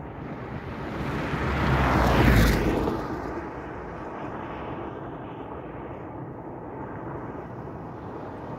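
A car driving past close by on a tarred road: its tyre and engine noise swells to a peak about two seconds in and fades away by three seconds, leaving steady road noise.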